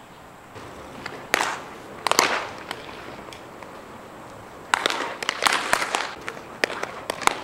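Baseballs smacking into leather gloves during warm-up catch: a couple of single sharp pops in the first half, then a rapid, irregular run of pops from several throws at once in the second half.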